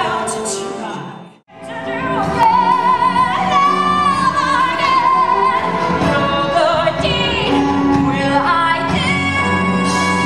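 A woman belting a musical-theatre song over orchestral accompaniment, recorded live in a theatre, holding a long note with vibrato. The sound drops out briefly about a second and a half in, where one excerpt is cut to the next.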